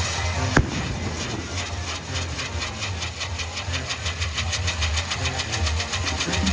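Ground firework on a small metal frame spraying sparks, giving a fast, even pulsing hiss over a low steady hum, after a single sharp bang about half a second in.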